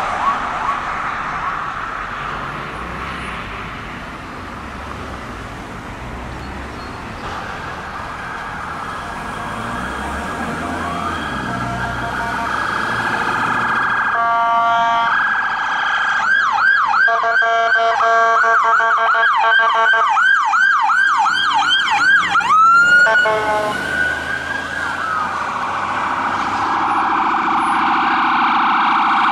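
Emergency vehicle sirens approaching. A steady wail grows louder, a horn blast sounds about halfway through, then comes a fast rising-and-falling yelp for several seconds, and it switches back to a steady wail near the end.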